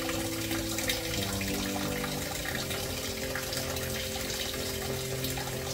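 Kitchen tap running in a thin, steady stream into a sink.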